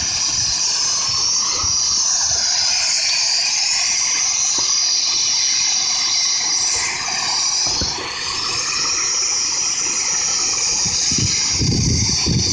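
Medical helicopter's turbine engine and rotor running on the ground, not yet lifting off: a steady rushing noise with a high whine that wavers slightly in pitch.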